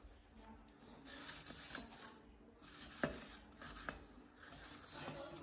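Flower stems and spiky flower heads rustling and rubbing against each other as a hand adjusts them in a vase. The rustling comes in three spells, with two sharp clicks about three and four seconds in.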